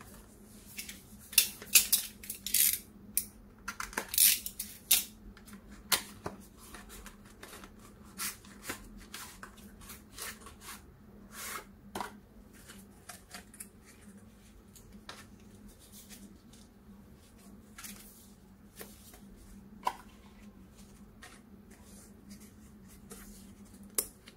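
Cardboard retail box and card inner tray being handled and opened by hand: dry rustles, scrapes and taps of card, busiest in the first six seconds and sparser after.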